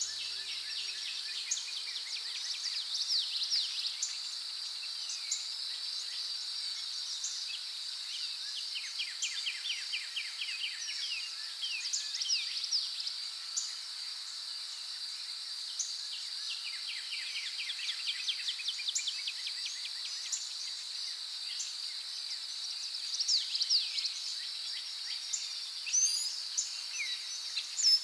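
Insects keep up a steady high drone, with birds chirping and giving short rattling trills over it every few seconds.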